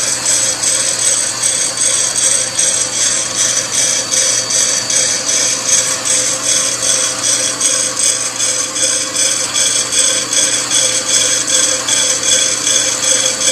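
Coffee bean roaster running: a steady motor and exhaust-fan hum under a fast, even rattle of beans tumbling in the rotating drum.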